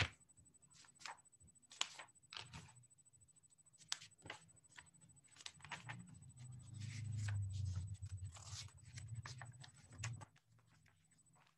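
Faint, irregular rustling, tapping and clicking of objects being handled close to the microphone, with a low rumble through the middle stretch and a thin steady high whine underneath.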